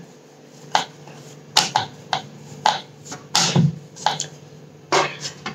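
Wooden rolling pin knocking and clacking on a round wooden rolling board as thick wheat-flour dough is rolled out: a string of sharp, irregular knocks, about two a second, with one heavier knock about three and a half seconds in.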